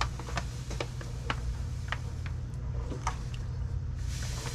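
Sugar being stirred into grape juice in a pot: a spoon knocking lightly against the pot in irregular clicks about two a second. A short hiss comes near the end, and a steady low hum runs underneath.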